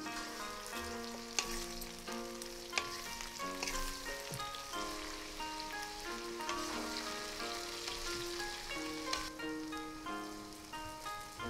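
Sliced star fruit sizzling as it fries with spices in a steel kadai, stirred with a spatula, with a few sharp clicks. A melody of background music runs over it.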